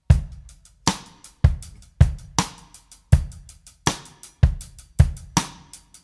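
Background music: a drum kit playing a steady beat alone, kick, snare and hi-hat hits about two a second, starting suddenly after a brief silence.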